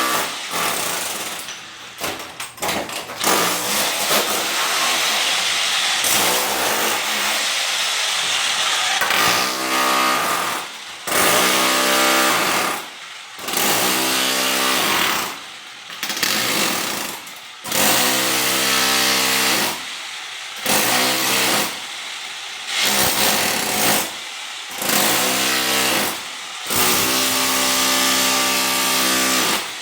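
A motor-driven machine or power tool running with a steady pitched hum, cut off briefly every two to three seconds and starting again.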